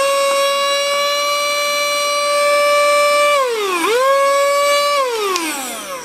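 Cordless handheld mini vacuum cleaner (HL107) switched on, its motor spinning up to a steady high whine. About three and a half seconds in the pitch dips briefly and recovers as it sucks up paper scraps, and near the end it is switched off and winds down with a falling whine.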